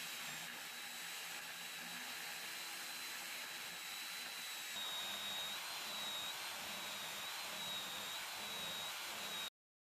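Electric drill spinning a homemade cylindrical sanding drum: a steady whirring with a high motor whine. About halfway it gets slightly louder and the whine wavers, and the sound cuts off abruptly just before the end.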